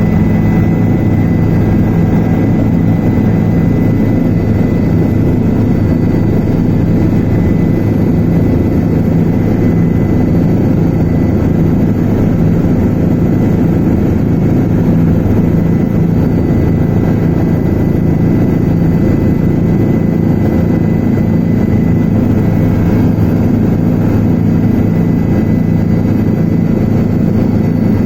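Helicopter in flight, heard from inside the cabin: the engine and rotor give a steady, loud low drone with a thin high whine above it, unchanging throughout.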